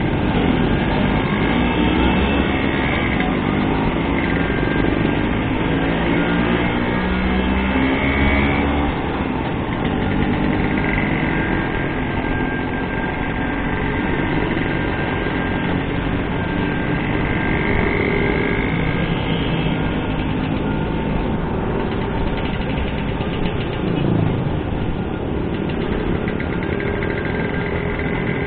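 Classic Vespa scooters' two-stroke single-cylinder engines running on the move, their pitch rising and falling with the throttle, over steady road and wind noise.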